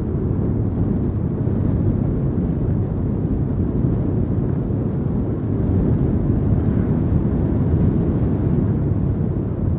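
Motorcycle riding along at a steady pace: an even, low rumble of engine and wind noise on the microphone.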